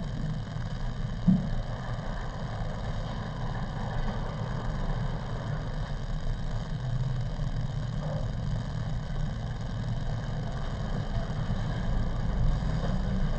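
Steady low background hum with a soft thump about a second in.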